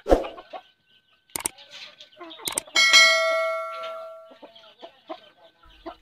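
Chickens clucking while feeding, with a few sharp clicks. About three seconds in, a loud bell-like ding rings out and fades over about a second and a half.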